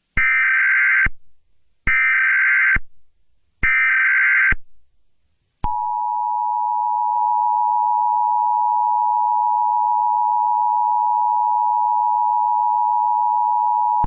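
Emergency Alert System opening: three bursts of the SAME digital header data screech, each about a second long with short gaps, then the steady two-tone EAS attention signal that sounds from about five and a half seconds in to the end. Together they herald an emergency broadcast, here a civil danger warning.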